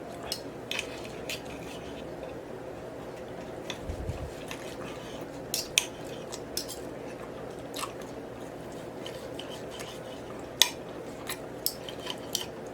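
Close-up eating sounds: chewing and mouth smacks with occasional clicks of cutlery on a plate, scattered sharp clicks over a steady low background hum.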